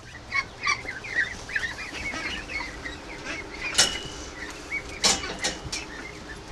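Ducks and ducklings calling, many short overlapping calls, from a flock the owner says a prowling fox has stressed. A few sharp clacks cut through, the loudest about four seconds in and just after five.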